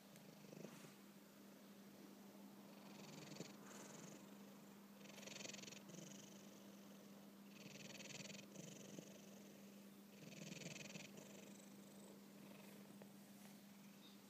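Domestic cat snoring softly in its sleep: four slow breaths, each a soft hiss, about two and a half seconds apart.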